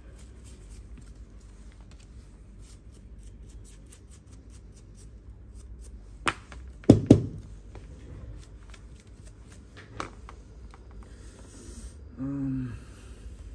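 Handling noise from an empty smartphone frame being turned over and checked by hand: many small clicks and scrapes, with a sharper click and then a louder double knock about six to seven seconds in.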